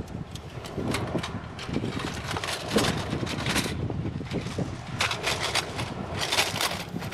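Thin titanium plates of a folding Bushbox XL stove clinking and clattering as it comes out of its pouch and its hinged panels are unfolded, in two busy clusters. Wind buffets the microphone with a steady low rumble throughout.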